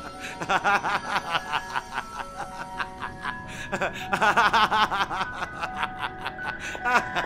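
A man laughing in bouts of rapid ha-ha pulses: one at the start, a stronger one about four seconds in, and another near the end. Music with held notes plays underneath.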